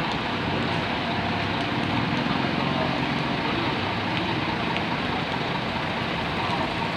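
Diesel bus engine running steadily at an even pitch, with no horn sounding.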